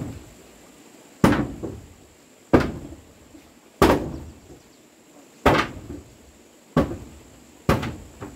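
Seven heavy blows struck on wood, evenly paced a little over a second apart, each a sharp knock that dies away quickly.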